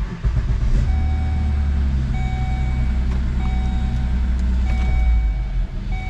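Volvo S80's 3.2-litre inline-six starting and then idling steadily, heard from the driver's seat. It runs quiet, with no grinding, after the repair. A dashboard warning chime sounds about five times, one short tone every second and a bit.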